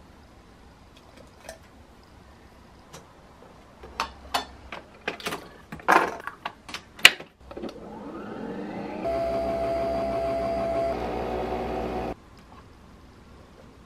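A series of clicks and clacks as the head of a Nespresso Vertuo coffee machine is closed. Then the machine's motor spins up with a rising whir, runs steadily with a humming tone while it spins the capsule to brew coffee, and cuts off suddenly.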